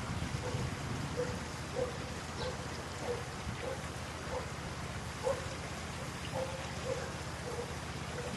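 An animal call: a short, low note repeated at a steady pace, a little under twice a second, over a steady rushing background of wind noise.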